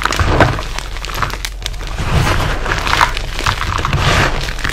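Bare hands squeezing and kneading a pile of crushed gym chalk cubes: dense crunching and crackling of chalk chunks breaking and powder packing, swelling with each squeeze about once a second.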